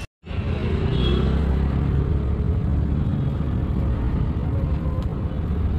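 Steady low rumble of motor-vehicle engines in nearby street traffic, cutting in after a split-second dropout at the start.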